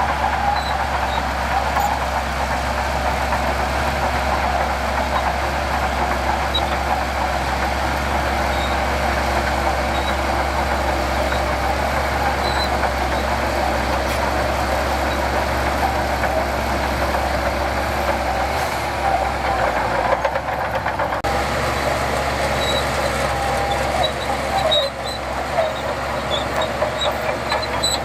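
Heavy diesel construction machinery running steadily under load, a constant low engine rumble with mechanical clatter over it, shifting briefly about two-thirds of the way through.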